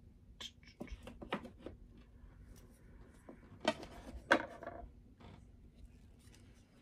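Light clicks and knocks of metal tweezers and a small clear plastic spider enclosure being handled on a tabletop, with two louder knocks about halfway through.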